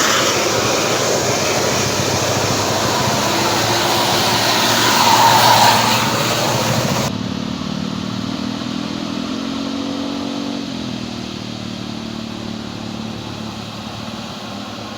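Tour bus engine pulling hard up a steep climb, with loud engine and road noise. About seven seconds in the sound cuts abruptly to a quieter, steady engine hum whose pitch shifts briefly.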